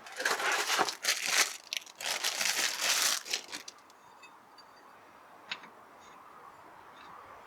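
Brisk wiping and rubbing with a cloth or paper towel, a run of crinkling, rustling strokes over the first three and a half seconds, then a faint click.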